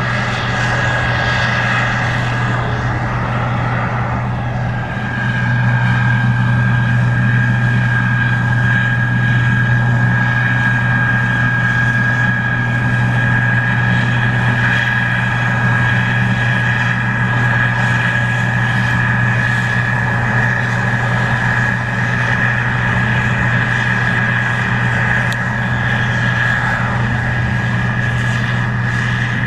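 Case IH 2388 Axial-Flow combine running steadily while harvesting corn: a deep diesel drone with a steady high-pitched whine over it, growing slightly louder about five seconds in.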